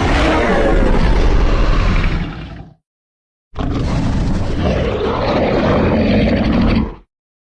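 Two film Giganotosaurus roar and growl sound effects, each about three seconds long with a rumbling low end, separated by a short gap of silence.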